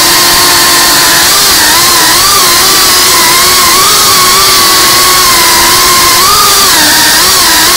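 5-inch FPV quadcopter's brushless motors and propellers whining, the pitch constantly wavering up and down with throttle changes.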